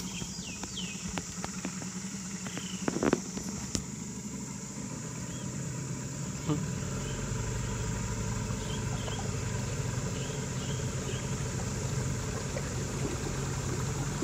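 Small boat's motor running steadily, growing louder about six and a half seconds in, under a steady high insect drone and a few high chirps.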